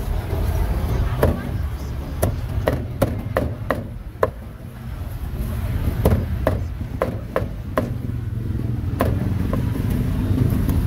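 Heavy cleaver chopping roast duck on a wooden chopping block. It makes two runs of sharp chops, about seven each, with a short pause between them, over a steady low rumble.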